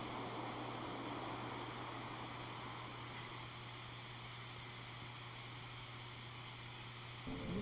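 Steady hiss with a constant low electrical hum: background noise of the broadcast audio with no one speaking.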